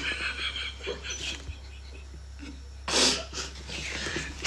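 A person's breathing, with one short, sharp breathy burst about three seconds in, over a low steady hum.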